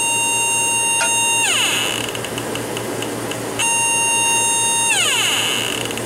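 H10B halogen refrigerant leak detector screaming at an R22 leak on a copper tube joint of a window AC coil. It gives a shrill, steady tone that slides down in pitch and dies away about a second and a half in. The tone returns about three and a half seconds in and slides down again near the end, over a steady hiss.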